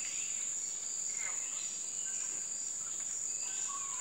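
Tropical forest insects droning: a steady high-pitched whine with fainter pulsing trills beneath it, and a few short sliding calls of other animals scattered through.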